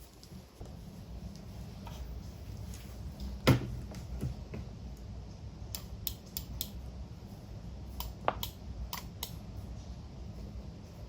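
Silicone push-pop bubbles of a keyboard-shaped pop-it fidget toy being pressed, giving scattered single pops, the loudest about three and a half seconds in and a run of them in the second half, over a low steady hum.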